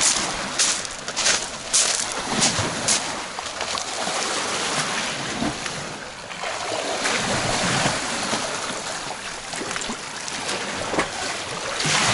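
Footsteps crunching on beach pebbles at a walking pace for the first few seconds, then a steady wash of sea surf with wind buffeting the microphone, and a few more crunching steps near the end.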